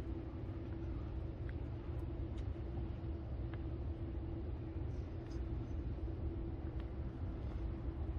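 Steady low room rumble of a large exhibition hall, with a faint constant hum and a few faint ticks.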